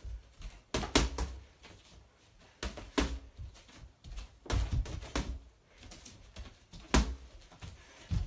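Boxing gloves punching a hanging Rosomakha heavy bag: short bursts of one to three sharp thuds with pauses of a second or so between them.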